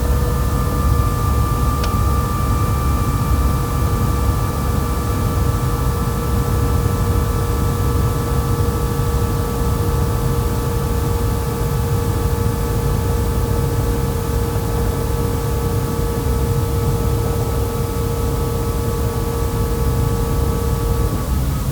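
Helicopter running steadily: a dense low rotor rumble under a constant high turbine whine. The lower whine tone stops shortly before the end.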